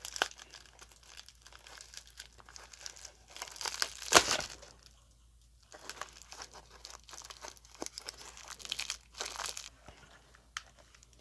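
Packing tape and wrapping on a heavily taped parcel being pulled and torn at: crinkling and crackling with short rips, the loudest about four seconds in.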